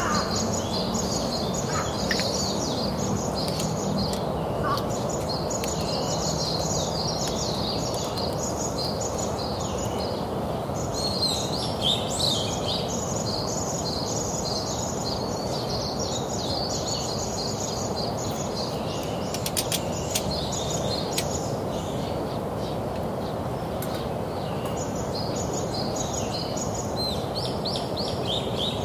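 Birds chirping almost continuously over a steady background hiss, with a few short pauses in the calling and a few faint clicks.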